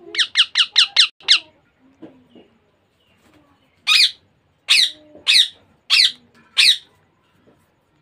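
Young Indian ringneck parakeet calling: a quick run of six shrill squeaks in the first second and a half, then, from about four seconds in, five louder and longer falling squawks, spaced under a second apart.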